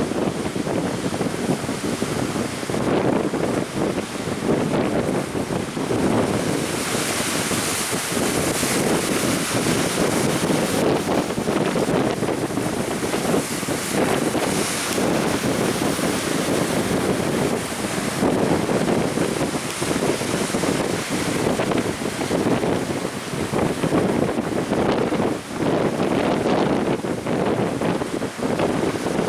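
Strong wind buffeting the microphone over surf breaking, a loud continuous rush with the hiss of breaking waves swelling now and then.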